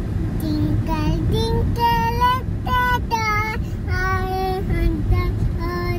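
A young girl singing in a sing-song voice, with held notes and short glides, over the steady low rumble of a moving car's cabin.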